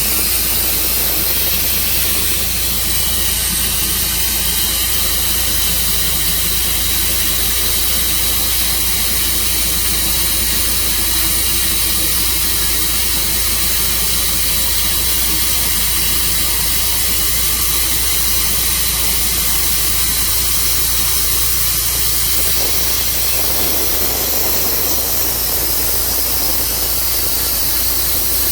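An engine running steadily under a loud, even hiss. A rougher mid-range noise joins in about 23 seconds in.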